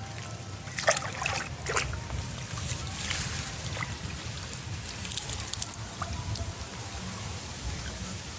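Shallow water trickling and sloshing, with a few brief splashes.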